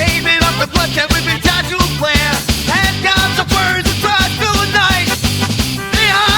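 Punk-rock style song in an instrumental passage: driving drums with a bending lead melody over a steady low bass line.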